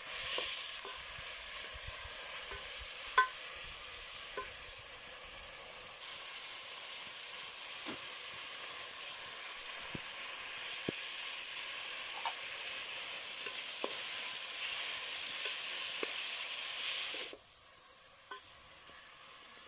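Onions, garlic and black pepper frying in hot oil in a sufuria, sizzling steadily, with a few sharp clicks, the loudest about three seconds in. The sizzle drops away suddenly near the end.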